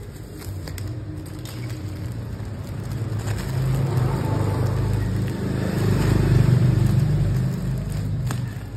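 Clear plastic bale wrap crinkling and rustling as it is pulled and cut open with scissors, over a low rumbling hum that swells through the middle and fades near the end.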